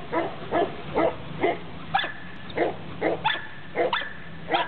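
Dog barking over and over at about two barks a second, with a thin high whine running between some of the barks.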